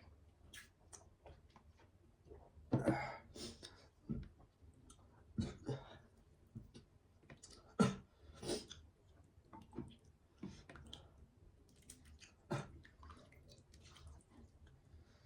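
A person eating: irregular chewing and mouth sounds with scattered small clicks. A few louder ones come about three, five and a half, eight and twelve and a half seconds in.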